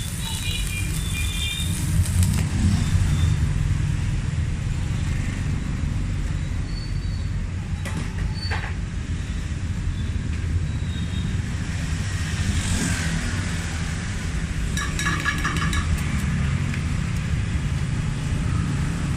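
Steady stick welding with a 3.2 mm electrode on a Megatec mini inverter welder, under a constant low rumble of street traffic and motorbikes.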